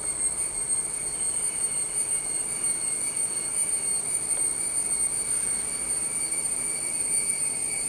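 A steady high-pitched whine made of several constant tones, over an even background hiss.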